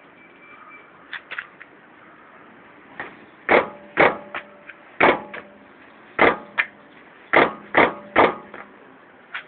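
Brake pads knocking in the caliper of a Toyota Corolla Verso: a few light clicks, then from about three seconds in a run of about seven loud, sharp clunks at uneven intervals with lighter clicks between. The owner puts the knock down to the brake pads rattling in their caliper.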